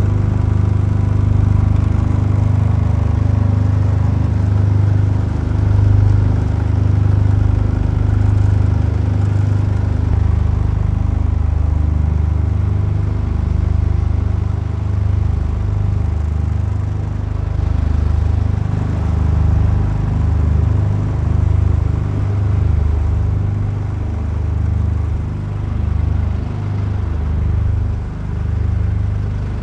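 An engine running steadily at low revs: a deep, continuous hum that throbs unevenly.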